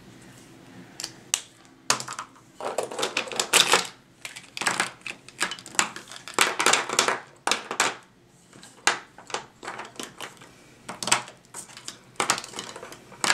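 Hard plastic markers clicking and clattering in irregular bursts as they are handled: caps snapped and markers rattled while the next colour is picked out.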